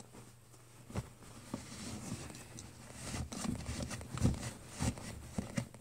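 Cloth rustling and scrunching as a wrapped bundle is pushed into a stainless steel kettle, with several light knocks and clicks against the metal, the sharpest about four seconds in.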